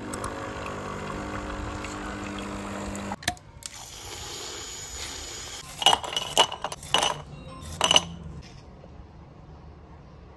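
A capsule coffee machine's pump hums steadily while dispensing, stopping with a click about three seconds in. Then ice cubes are dropped into a glass, clinking sharply several times.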